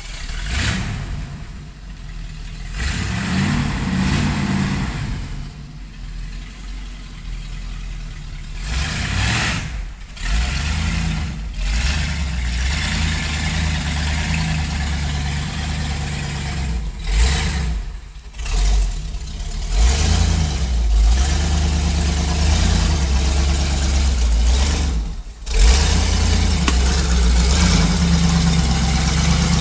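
Ford F-250 pickup's engine running hard and revving up and down as the truck works its way along a creek bed, with a haze of noise over the engine note. Revs drop off briefly a few times, then build again.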